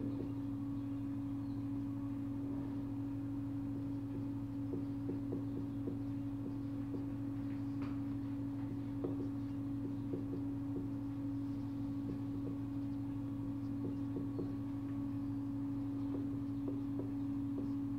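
Steady electrical hum, one mid-pitched tone over a lower drone, with faint short scratches and taps of a marker writing on a whiteboard from about four seconds in.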